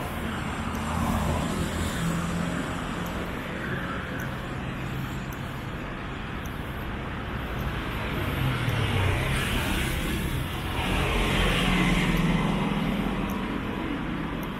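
Road traffic, with several cars passing close one after another, their engines humming under the tyre noise; the loudest pass comes about eleven to thirteen seconds in.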